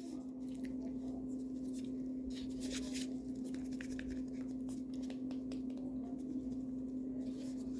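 Kinetic sand being pressed and scraped in a small plastic mold: faint scratching and light plastic clicks from handling, over a steady low hum.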